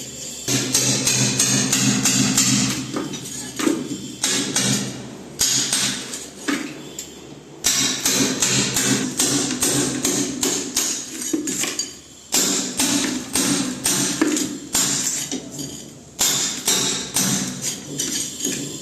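Rapid, uneven hammer strikes, many in quick succession with short pauses, typical of hammering into masonry.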